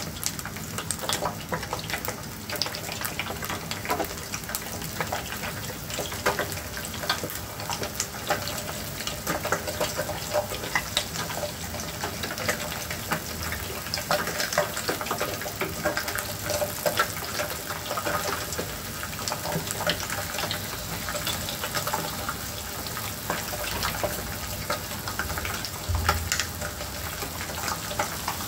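Eggs frying in hot oil in a pan: a steady sizzle full of many small crackles and pops.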